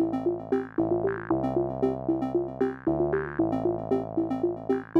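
Outro background music: a quick repeating figure of short electronic notes over held chords that change every second or two.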